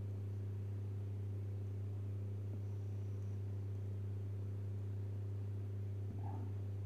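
Steady low electrical hum with a few fainter overtones above it, unchanging throughout. A faint brief handling sound comes near the end as the PTFE tube is worked into the print head.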